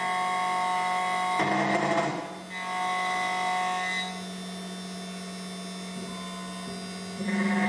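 SEC-E9 key cutting machine running, its motor humming steadily while the cutter mills a Toyota TOY43 key blank. The sound turns gritty and louder for about a second near the start, then settles to a quieter steady hum from about four seconds in, and grows louder again near the end.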